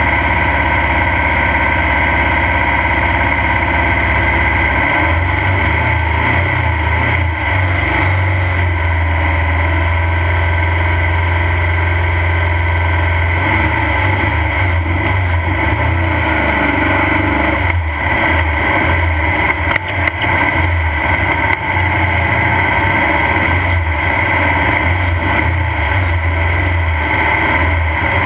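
Off-road race car's engine running, heard from on board. Its note steps up about five seconds in and then rises and falls as the car is driven.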